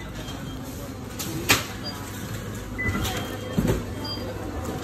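Supermarket background noise: a steady hum with a sharp clack about a second and a half in and a few lighter knocks and clatters later on.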